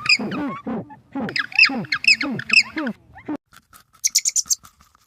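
Birds squawking in quick runs of short falling calls. About three seconds in it cuts to a quieter stretch of scattered clicks and brief high chirps.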